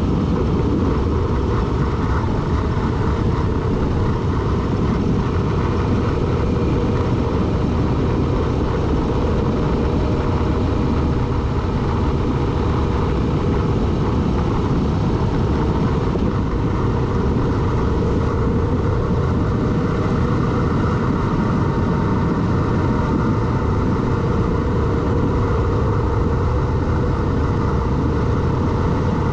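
A road vehicle driving at a steady pace: an even, unbroken rush of engine, road and wind noise with no revving or shifting heard.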